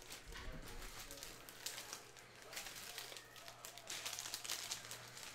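Trading-card packs and cards being handled by hand: faint, irregular crinkling and rustling of pack wrappers and card stock.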